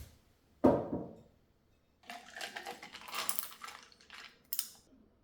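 Small hard household objects being handled: a solid knock just under a second in, then a couple of seconds of light clattering and clinking, ending in a sharp click.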